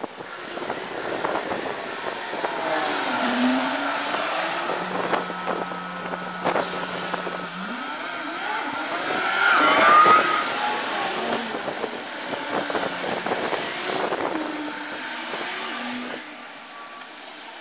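Road traffic passing: city buses and cars, their engine sounds rising and falling in pitch, loudest about ten seconds in.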